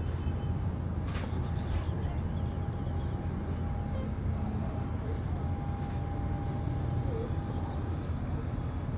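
Steady low rumble of distant engines, with a faint, steady high whine that stops near the end and two light clicks a little over a second in.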